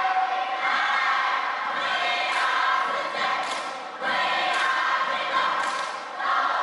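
Many voices chanting a cheer together in unison, in phrases of about two seconds, each ending and starting again several times over.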